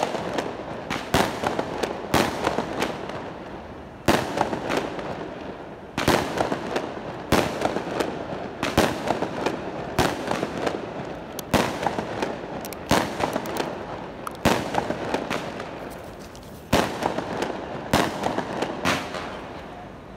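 Fireworks going off in quick succession: a sharp bang every second or two, each trailing off before the next.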